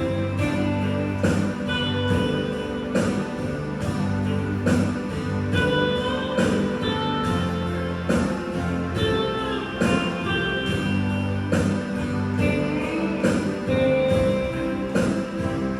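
Hand bells and melodica playing a simple melody together, over a low bass line and a steady beat of sharp strikes about twice a second.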